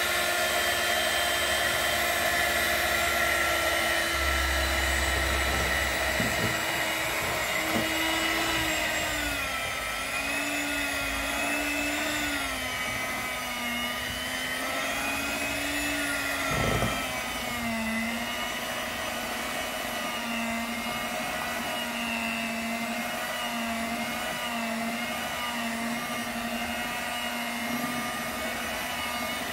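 Electric hand mixer running steadily, its motor whine dropping in pitch about a quarter of the way in and wavering lower as the beaters work flour into thick banana cake batter. One short knock a little past halfway.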